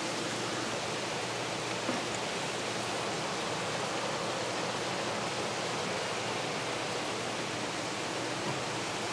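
Steady rushing hiss of water pouring from filter return outlets into aquarium tanks.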